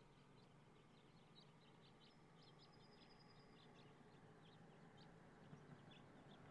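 Faint birds chirping, many short chirps and one longer thin high note in the middle, over quiet rural ambience. A distant vehicle's low road noise grows slightly louder toward the end.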